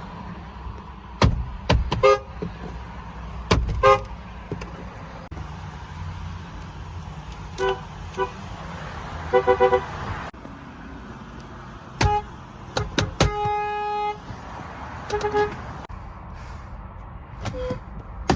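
A string of car horns from different cars, about ten honks at varying pitches: mostly short single toots and quick double or triple beeps, with one horn held for about a second past the middle. Steady outdoor background between honks.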